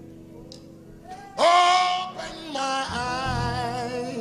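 Church worship music: held instrumental chords, then a solo voice comes in loudly about a second and a half in, singing long notes with vibrato. Bass notes join about halfway through.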